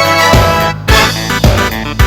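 Upbeat electronic music with a steady beat, synthesizer and low drum hits about twice a second.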